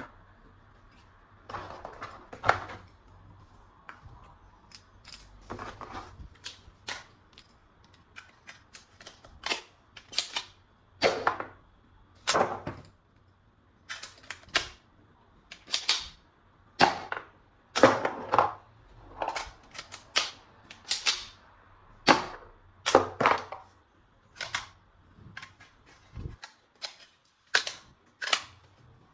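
Toy guns being handled and worked: dozens of sharp plastic clicks and snaps at irregular spacing, often in quick pairs, growing louder after the first few seconds.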